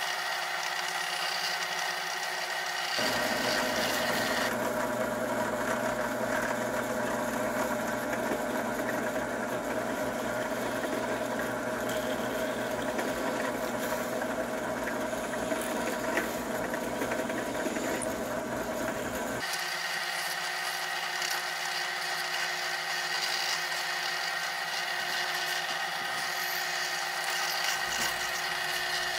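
Drill press motor running steadily while a thin bit drills into a stabilized wood handle block. From about three seconds in until about nineteen seconds a rougher, slightly louder cutting noise joins the motor's hum as the bit works into the wood.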